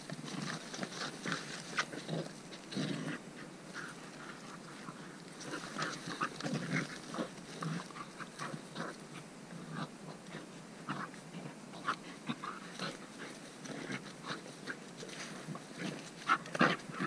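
A timber wolf and a Malinois dog play-fighting: short growls and snarls mixed with scuffling, coming in brief irregular bursts, loudest about a second before the end.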